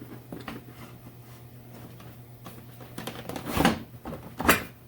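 Knocks and light scrapes of a motorcycle part being hooked under and set into place on the frame, the loudest knocks about three and a half and four and a half seconds in.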